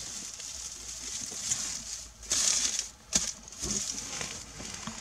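Dry grass stems rustling and crackling as a gloved hand handles a bunch of them, in several short, uneven rustles, the loudest a little after two seconds in.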